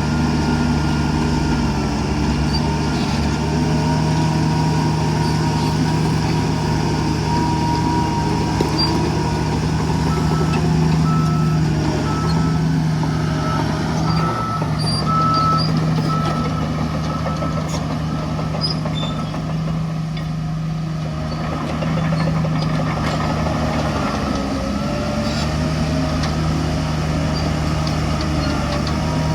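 Heavy diesel earthmoving machinery running steadily under load, its low engine drone filling the whole stretch. A reversing alarm beeps in a short series about a third of the way through.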